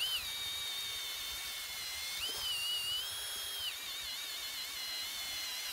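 Kobalt 24V brushless drill running on high speed, boring two holes with a 3/4-inch speed bore bit: a steady motor whine. Its pitch steps up for about a second and a half midway, then drops back.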